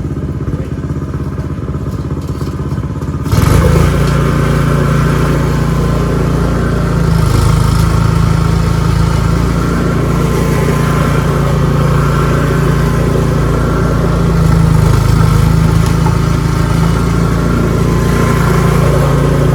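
Ariens 624E snowblower engine running steadily with an even hum. It gets clearly louder about three seconds in.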